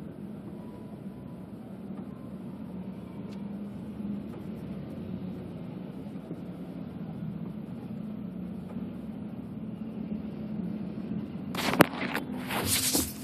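Steady low drone of a car's engine and tyres heard from inside the cabin. About eleven and a half seconds in, a burst of loud knocks and rubbing as the recording phone is handled and moved.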